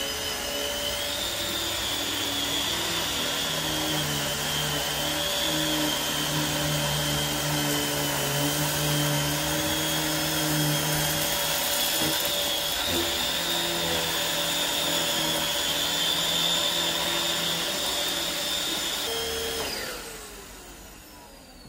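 Dyson DC21 Motorhead bagless canister vacuum running with a steady high whine while its motorized powerhead vacuums glitter, fake pet hair and paper off a rug. Near the end the motor is switched off and winds down, falling in pitch.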